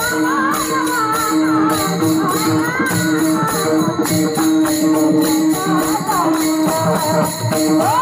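Warkari devotional bhajan in Bhairavi: young women's voices singing a wavering melody over a chorus of small brass hand cymbals (taal) clashing in a steady rhythm, with a held note underneath. The singing is strongest in the first few seconds and returns near the end.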